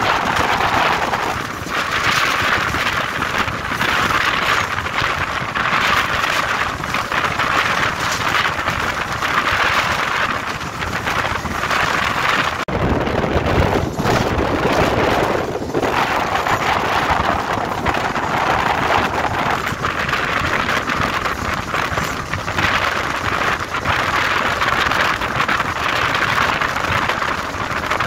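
Diesel-hauled passenger train running at speed: a steady rush of wheels on rails and wind past the microphone, heard from on board. About halfway through the sound shifts suddenly to a deeper rumble for a few seconds before settling back.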